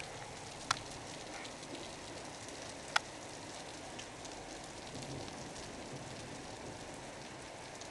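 Steady hiss of heavy thunderstorm rain falling on rooftops, with two sharp taps, one just under a second in and one about three seconds in.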